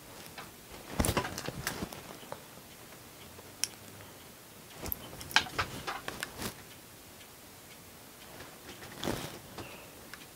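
Light, irregular clicks and taps of makeup items being handled: a tin eyeshadow palette and brushes being set down and picked up. They come in three small clusters, about a second in, around the middle, and near the end.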